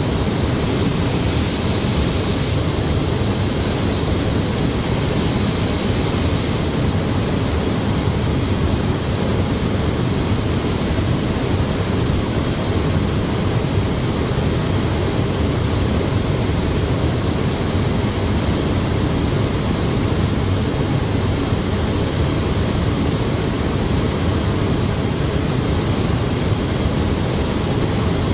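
Steady rushing air noise of a car-body paint booth, mostly low and even, with a brighter hiss from about one second to six and a half seconds in.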